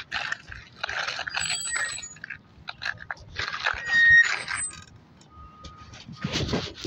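Electric scooter's brakes squealing and scraping in several harsh bursts with thin high squeal tones, the loudest just before the middle, then a brief faint whistle and another burst near the end. It is a brake squeal that the rider has tried to fix without success.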